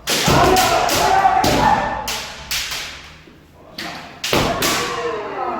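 Kendo sparring: bamboo shinai cracking against armour and feet stamping on a wooden floor in quick clusters of sharp strikes, with shouted kiai over them.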